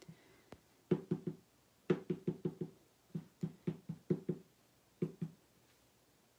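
A rubber stamp on a clear acrylic block is tapped again and again onto an ink pad to ink it up. The taps are quick and come in three or four runs, about twenty in all, with the last pair about five seconds in.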